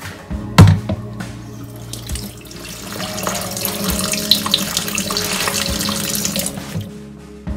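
Kitchen tap running into a plastic bowl of beef short ribs in a stainless steel sink, water splashing as the meat is rinsed by hand; the splashing builds from about two and a half seconds in and falls away near the end. A single sharp knock about half a second in is the loudest sound.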